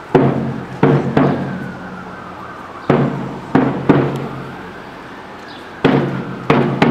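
Deep drum struck in a slow, repeating pattern of three beats, one hit and then two close together, about every three seconds. Each hit rings out and fades before the next group.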